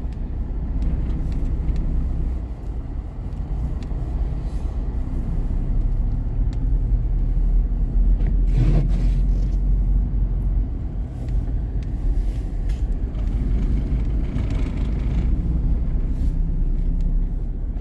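A car driving slowly through snow, heard from inside the cabin: a steady low engine and road rumble, with a brief louder swell about nine seconds in.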